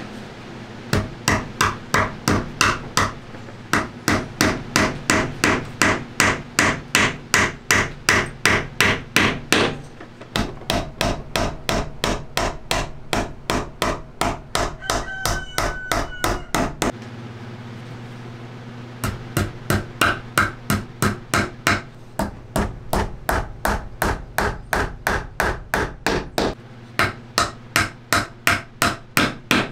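Hammer driving small nails into the wooden end bars of a Langstroth beehive frame: quick runs of light, evenly spaced strikes at about three a second, with short pauses between runs.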